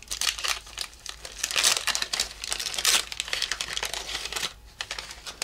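Wax-paper wrapper of a 1984 Topps baseball card pack crinkling and tearing as it is peeled open by hand, in a run of crackles that eases off near the end.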